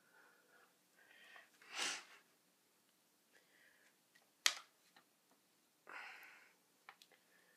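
Soft breaths and sniffs, with one sharp click about halfway through.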